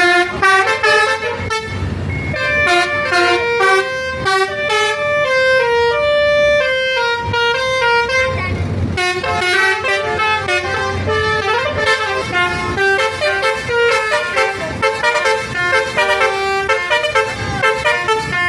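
Bus basuri telolet musical horn playing a fast tune of stepped notes over a low rumble.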